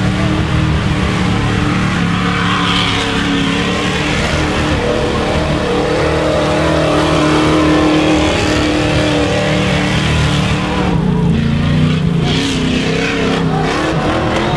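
Big-block V8 engine of a mud truggy running hard at high revs as its tyres churn through deep mud, the engine note steady and loud. In the last few seconds the note wavers and a few sharp knocks come as the truggy tips over.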